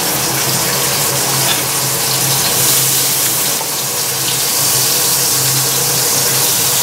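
Meat sizzling steadily in a hot frying pan, a continuous hiss with a low hum underneath.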